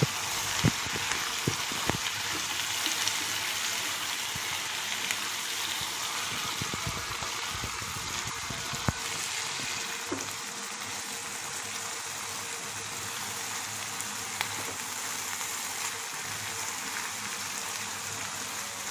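Cut brinjal pieces frying in hot oil in a kadai: a steady sizzle. A spatula stirring them knocks and scrapes against the pan, mostly in the first half.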